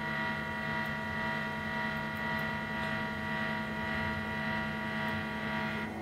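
Electric guitar noise through a Zoom G1X multi-effects pedal: a steady droning whine over a low hum, with many held tones stacked together, likened to a jet's turbine. It cuts off at the very end as a different, lower tone takes over.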